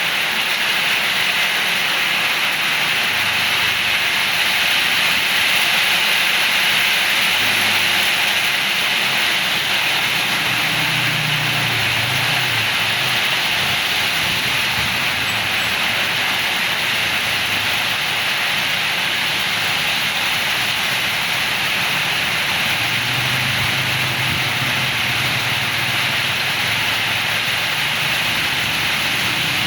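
Heavy rain pouring steadily in strong wind, a continuous loud hiss, with a low rumble swelling up twice.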